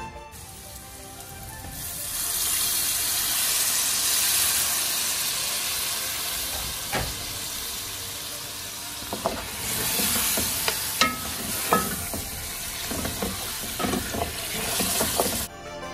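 Mutton pieces sizzling in hot spiced oil in an aluminium pot, a steady hiss that grows louder about two seconds in. In the second half a wooden spatula stirs the meat, with scattered clicks and knocks against the pot.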